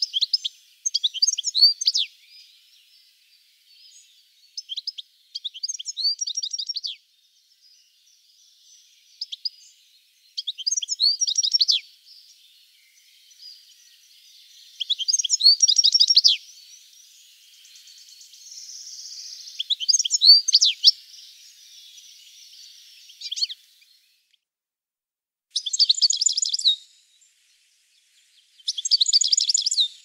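European goldfinch singing: a series of short phrases of quick, high twittering notes, each a second or two long, with brief pauses between them.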